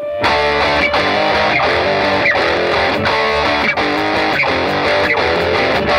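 Background music: a guitar playing a repeating riff with a steady beat.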